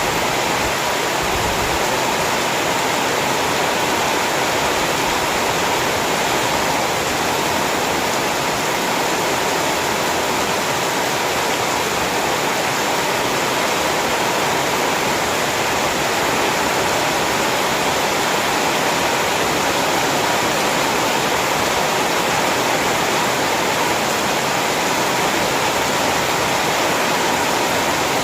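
Heavy rain falling as a steady, dense hiss, with no single drops or pauses standing out.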